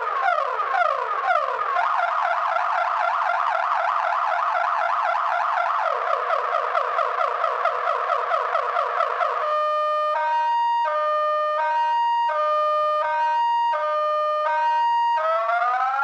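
Viper car alarm siren in full panic mode, cycling through its tones. It starts with repeated falling chirps, then goes to a fast warble that drops in pitch about six seconds in. From about nine and a half seconds it alternates between two tones, roughly every second, and near the end it switches to rising whoops.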